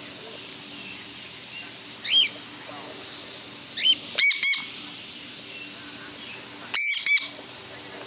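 Cockatiels calling in flight: a few short rising whistles, then two loud pairs of ringing calls, about four seconds in and again about seven seconds in.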